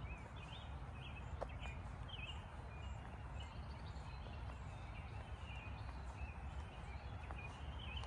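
Songbirds chirping in short high calls over a steady low rumble. The chirps come thickest in the first couple of seconds and again near the end.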